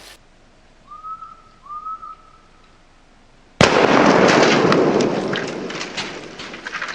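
Two short whistled notes, then about three and a half seconds in a single 20-gauge shotgun blast from a New England Firearms single-shot, loud and sudden, with a long echoing tail.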